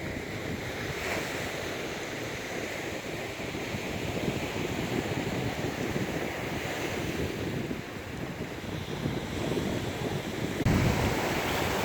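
Sea surf washing on the shore, with wind noise on the microphone. The noise jumps louder suddenly near the end.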